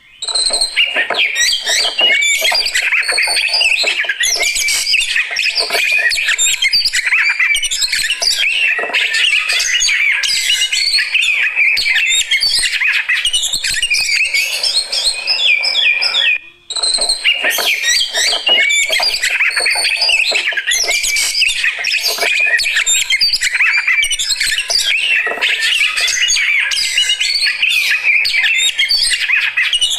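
Oriental magpie-robin (kacer) singing in the full, aggressive 'fighter' style: a loud, rapid, unbroken stream of varied chirps and whistles. It breaks off for a moment about halfway through, then carries on.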